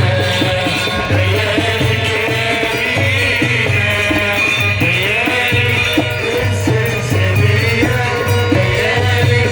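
Egyptian simsimiyya folk music played without singing: a wavering melody over a steady, even drum beat.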